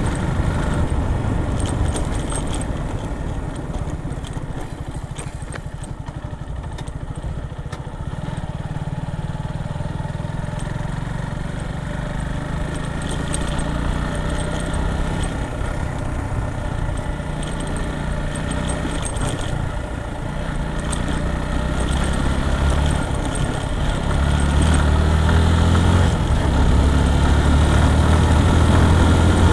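Motorcycle engine running while the bike is ridden, its low tone shifting with the throttle, getting louder over the last several seconds.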